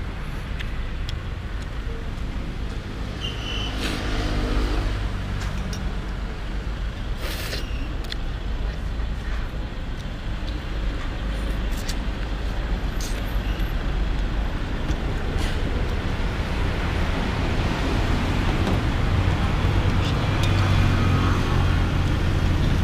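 Road traffic passing on the street, a steady low rumble that swells as vehicles go by, once a few seconds in and again near the end. A few sharp clinks of a spoon and chopsticks against a bowl.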